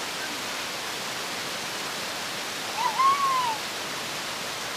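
Small stepped waterfall splashing over rock ledges in a steady rush of water. About three seconds in, a short call rises and falls in pitch above it.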